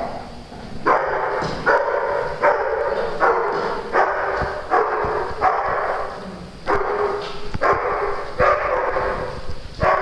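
A dog barking over and over in a steady run, a little more than one bark a second, with a brief pause about two-thirds of the way through.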